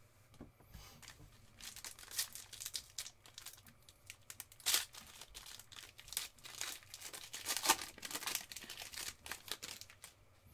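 Foil wrapper of a football trading card pack being torn open and crinkled by hand, a run of irregular crackles that is loudest about halfway through and again near the end.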